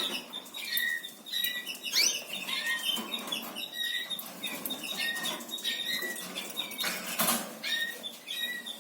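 Caged canaries giving short repeated chirps, with a rising call about two seconds in, over light tapping and rustling. A brief noisy rush comes about seven seconds in.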